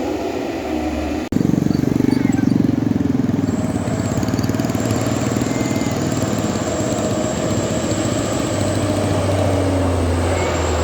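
A motor vehicle's engine running steadily with road noise. About a second in there is an abrupt break, after which the engine sound is louder.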